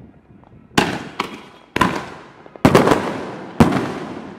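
Aerial fireworks bursting: four loud bangs about a second apart, each trailing off in a long fading tail, with faint small crackles between them.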